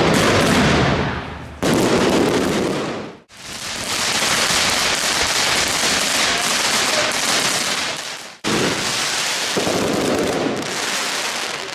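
Fireworks going off in dense crackling and bangs, heard as several spliced clips that cut off abruptly about a second and a half in, at about three seconds, and at about eight and a half seconds.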